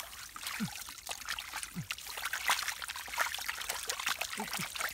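Wet mud and muddy water slopping and trickling as a perforated plastic basket is scooped through shallow mud by hand, a steady crackle of small splashes and squelches with a few short low glugs.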